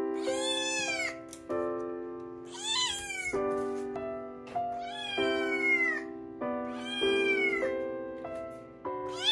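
Munchkin kitten meowing over and over: five high meows about two seconds apart, the last starting near the end. Soft background music with sustained chords plays underneath.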